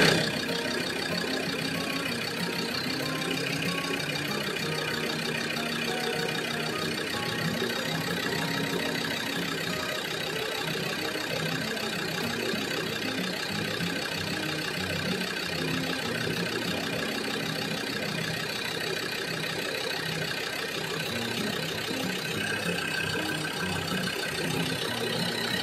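Land Rover Discovery 2 Td5 five-cylinder turbodiesel engine idling steadily, freshly restarted after its fuel pressure regulator was rebuilt, while it is checked for diesel leaks.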